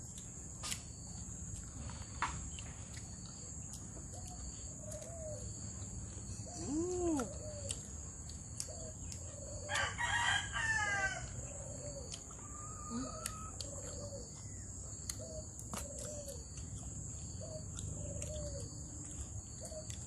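A rooster crows once, about halfway through, over short low calls repeating about once a second and a steady high insect drone.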